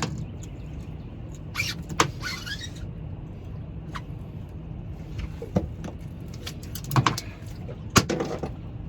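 Scattered sharp knocks and clunks, with short rattling bursts, on a boat while a catfish is handled, over a steady low rumble. The knocks come near the start and again about 2, 4, 7 and 8 seconds in.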